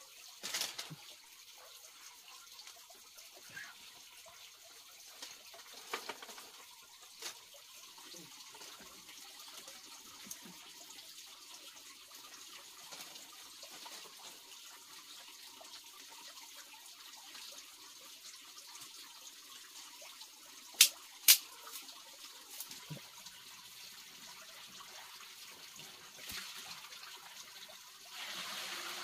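Faint steady trickle of running water, with scattered knocks and clicks of bamboo sticks being split and laid in a wood-fire hearth. Two sharp snaps come about two-thirds of the way through, and the sound swells near the end as the kindling is lit.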